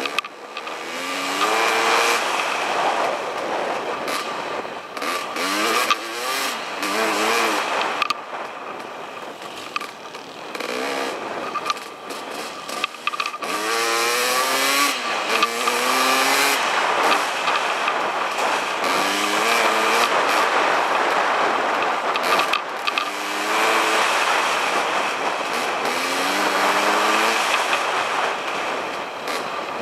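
Dirt bike engine pulling hard along a dirt trail, its pitch climbing again and again as the rider accelerates and shifts, under a heavy rush of wind on the camera, with scattered knocks from the bike bouncing over the rough track.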